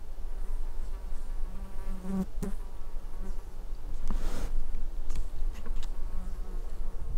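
A flying insect buzzing in short passes, loudest about two seconds in, with a few sharp clicks and a brief rustle about four seconds in.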